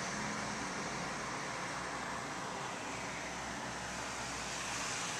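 Steady hiss of rain falling on a wet street, with a faint low hum under it in the first second or so.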